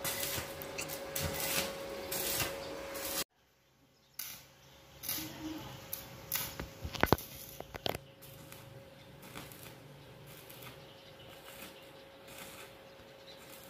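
Arc welder crackling as a stick electrode welds a light-steel C-channel frame, cutting off abruptly about three seconds in. After that it is quieter, with a few sharp clicks around the middle.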